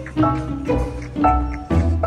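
Background music with a steady beat of about two notes a second over a strong bass line.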